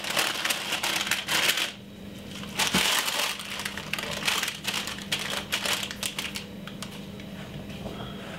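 Greaseproof paper crinkling and rustling as hands handle it around a joint of pork in a roasting tray, in two spells, dying down over the last couple of seconds.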